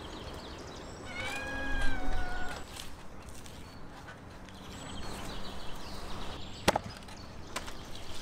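One drawn-out animal call starting about a second in, with several stacked tones that fall slightly at the end. Then softer scraping and handling, with a sharp click a little before the end, as a knife cuts a whole salmon on plastic sheeting.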